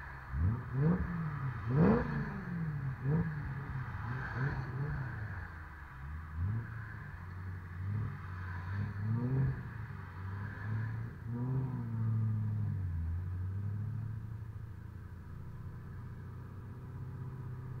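BMW E90 M3's V8 through a Megan Supremo cat-back exhaust, with the secondary catalytic converters removed. The engine is blipped sharply several times in the first few seconds, then given a few lighter revs, and from about two-thirds of the way in it settles into a steady low note as the car pulls away.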